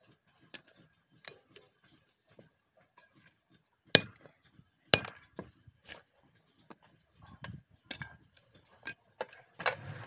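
Rusty iron rods clinking and knocking against one another as they are handled and set down in a pile, with two sharp ringing metal clanks about four and five seconds in. Near the end comes a scraping rustle.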